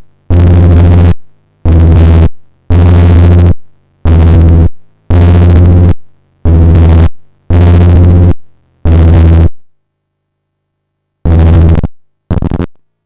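Heavily distorted, noise-laden synth bass notes at one low pitch, each cut off after under a second, played about once a second: eight in a row, a short pause, then two shorter ones near the end. The harsh, buzzing overdrive is that of analog-style glitch and tube-distortion plugins.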